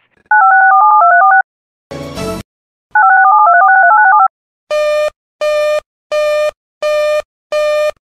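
Two quick runs of touch-tone (DTMF) dialing tones, separated by a short burst of static. Then five evenly spaced buzzy beeps.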